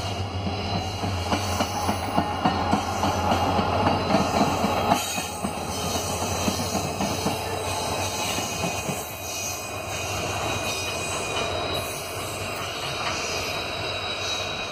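A pair of WDG4 and WDG4D diesel-electric freight locomotives, EMD two-stroke diesels, running past close by, their engines droning under the clatter of wheels over the rails. Loudest a few seconds in as they pass.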